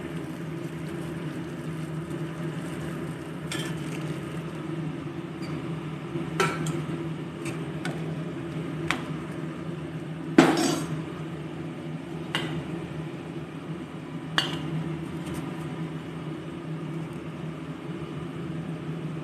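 Cooking utensils clinking and knocking against a metal kadai about nine times at irregular intervals, the loudest knock about ten seconds in, over a steady low hum.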